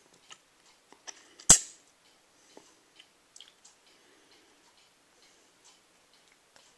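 Handling noise from a paper instruction sheet held close to the microphone: scattered small clicks and taps, with one loud, sharp snap about a second and a half in.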